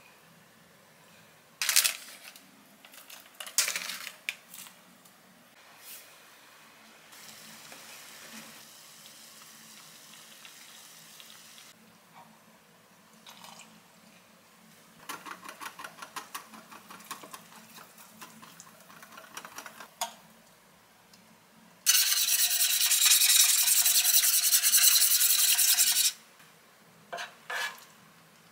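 Kitchen prep sounds. First a couple of knocks as bean sprouts are dropped into a pot. Then flour and water batter is stirred in a glass bowl with quick strokes, and near the end there is a loud steady hiss of about four seconds, followed by a few metal clinks.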